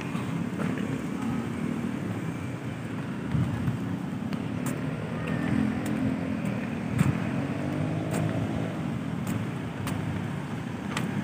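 City road traffic: cars passing with a steady low rumble, and a few sharp clicks, the loudest about seven seconds in.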